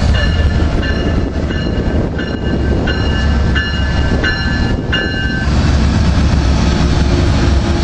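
GE P42 Genesis diesel locomotive passing close at speed, its bell ringing about one and a half strokes a second over the low rumble of the engine and wheels. The bell stops about five seconds in.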